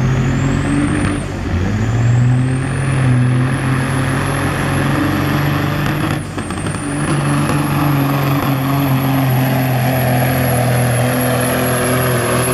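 Semi truck's diesel engine at full throttle, hauling a weight-transfer sled, with black smoke from the stacks. It shifts gear twice, about a second in and about six seconds in, the note dipping briefly each time, and a high turbo whistle climbs again after each shift.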